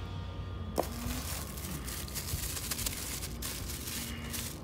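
Plastic bag packaging crinkling and rustling as a wrapped lamp part is handled, starting about a second in with a short sharp sound.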